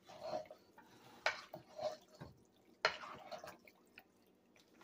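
Wooden spoon stirring shell pasta and vegetables in a thick, creamy sauce in a pot. Soft wet sounds of the sauce, with two sharper scrapes against the pot about a second and a half apart.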